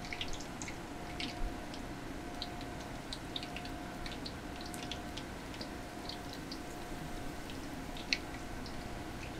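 Oyster and scallop fritters deep-frying in a wok of hot oil: a steady sizzle with many small crackles and pops scattered through it.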